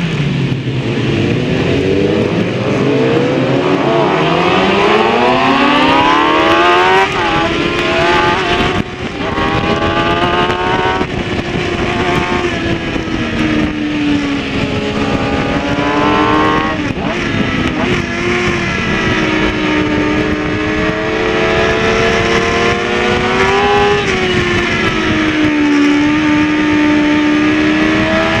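Kawasaki ZX-6R inline-four engine at racing speed, heard on board. After a long climb in pitch it drops sharply at several quick upshifts, then rises and falls with the throttle through the bends.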